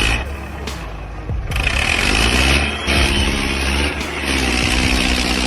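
A heavy vehicle's engine revving up about a second and a half in, rising in pitch, then running hard under load.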